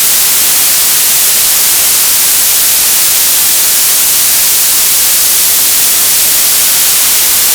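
Television static: a loud, steady hiss, brightest in the high frequencies, with no change throughout.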